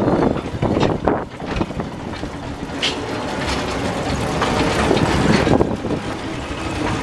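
Small narrow-gauge steam locomotive working past and pulling away, with sharp exhaust beats in the first couple of seconds, then a steady rumble and clatter as its carriages roll by on the rails.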